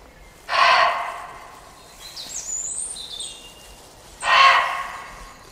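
Muntjac deer barking, a hell of a racket: two loud, sharp barks about four seconds apart. A small bird chirps between them.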